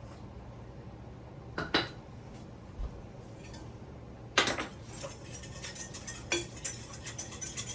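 Kitchen utensils and dishes knocking and clinking: a sharp knock about two seconds in, a louder one halfway through, then a run of quick small clinks and scrapes.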